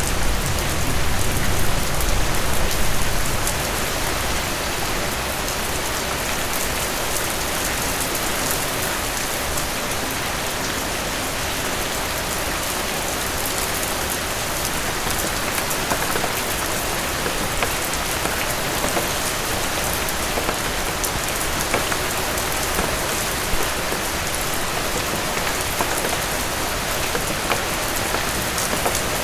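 Heavy rain falling steadily, a dense hiss with scattered sharp drop ticks. A louder low rumble lies under it for the first three seconds or so.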